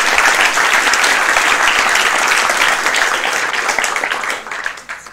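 Audience applauding, many hands clapping at once, fading away near the end.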